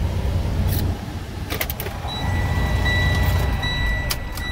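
Semi truck's diesel engine idling, heard from inside the cab, with a few sharp clicks. About halfway through a steady high-pitched tone starts and keeps sounding.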